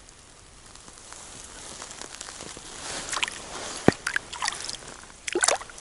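Snow and slush crunching and squishing at an ice-fishing hole as a hand works in it to lift out a hooked small bream, with a little sloshing of water. It is quiet at first; the crunching starts about halfway through, with one sharp click about four seconds in and a last flurry near the end.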